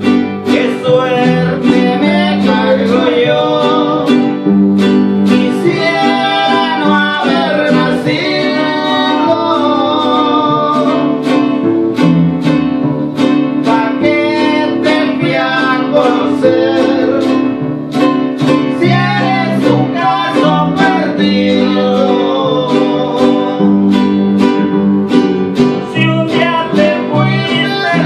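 Live band music: two nylon-string classical guitars strummed and picked over a steady electric bass line, with a man's voice singing over the guitars.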